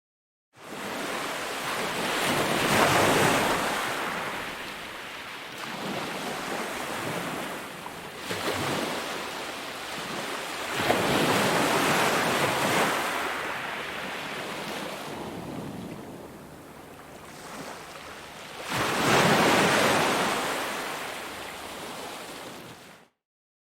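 Ocean surf: waves break and wash in three big swells, about eight seconds apart, with quieter wash between them. The sound starts abruptly and cuts off abruptly near the end.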